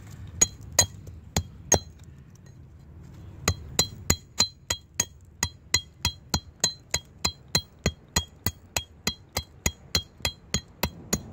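Wooden mallet batoning a knife through a fatwood knot. There are four strikes, a short pause, then steady strikes about three a second, each with a short metallic ring from the blade.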